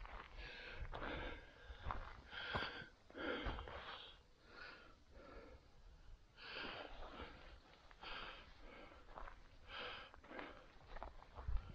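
Footsteps through dry grass and forest litter: an irregular series of soft swishing, crunching steps over a faint low rumble.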